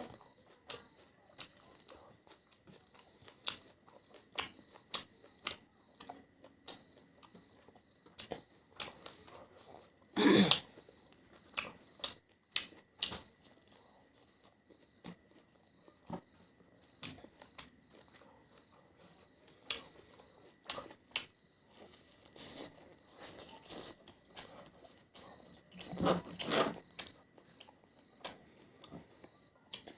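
A person chewing and biting close to the microphone while eating beef on the bone: irregular crunches and wet mouth clicks. Two longer, louder sounds come about ten seconds in and again near the end.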